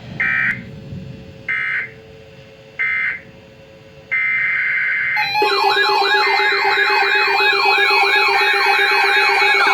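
Emergency Alert System data tones: three short bursts, each under half a second and about 1.3 s apart, marking the end of the message. A longer data burst follows about four seconds in. After it comes a loud alarm of fast, repeating siren-like sweeping tones over a steady tone.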